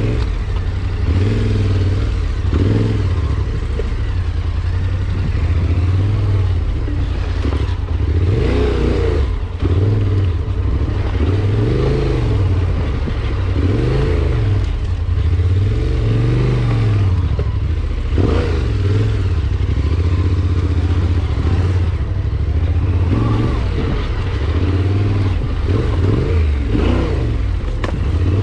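Vehicle engine running under changing throttle, its pitch rising and falling again and again, with scattered knocks and rattles.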